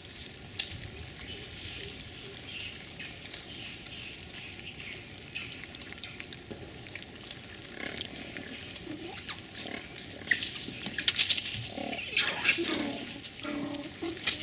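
Cattle in a cow shed: rustling and scattered knocks, growing louder about ten seconds in, with short low animal sounds near the end.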